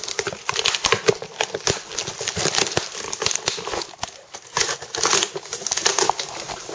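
Packaging being crinkled and rustled as a shipping box is unpacked, with irregular crackling rustles and rummaging.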